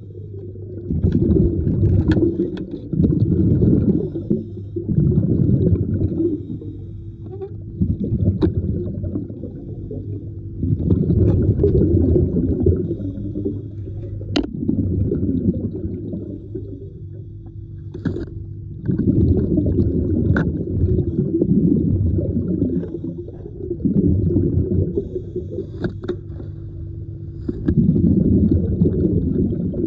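Underwater sound of a diver's exhaled bubbles: muffled bubbling rushes in bursts every few seconds, over a steady low hum, with a few sharp clicks.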